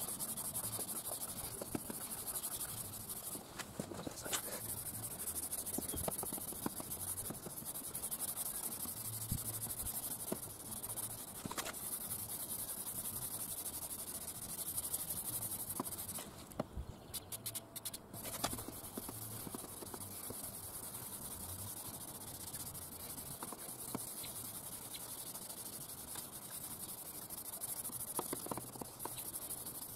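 Hand sanding pad rubbed in strokes over a yellowed plastic headlight lens of a Jaguar S-Type: a steady scratchy hiss with small clicks, the first abrasive stage of a headlight restoration. It pauses briefly about three seconds in and again around sixteen seconds.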